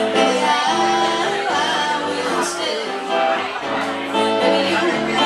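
Live acoustic music: an electric keyboard and an acoustic guitar playing together, with singing.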